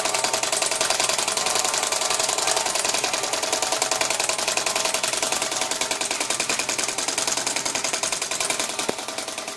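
Wood-fired Stirling engine running at about 350 rpm, its crank and linkages making a fast, even mechanical rattle. The rattle drops a little quieter near the end.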